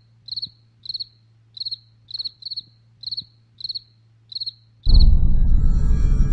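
Cricket chirping about twice a second, each chirp a quick trill of a few pulses, over a faint low hum. Nearly five seconds in, a loud, deep music sting cuts in over it and is the loudest sound.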